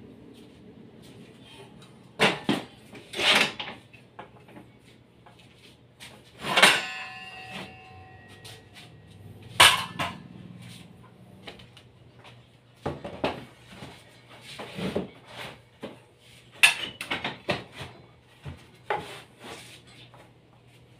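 Knocks, bumps and clatters of a portable circular saw and a wooden sled being handled on a metal saw table, with no motor running. One louder metallic clang about six and a half seconds in rings on for about two seconds.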